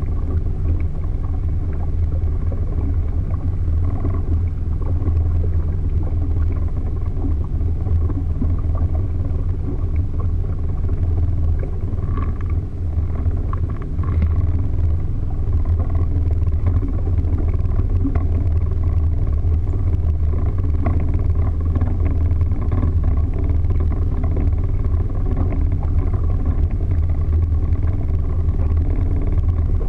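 Motorboat engine running steadily at speed, a low, even drone with water noise from the moving hull; the level dips briefly about halfway through.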